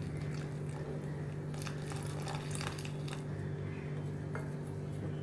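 Small wire whisk stirring gram-flour batter in a glass bowl, its wires giving a few faint clicks against the glass, over a steady low hum.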